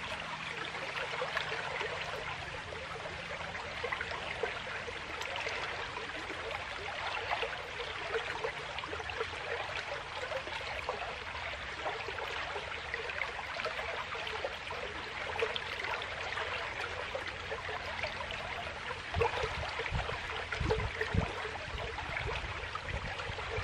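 Fast, muddy creek water rushing and burbling over rocks, a steady hiss with a fine crackle, the stream running high and swift after days of rain. A few dull low thumps come near the end.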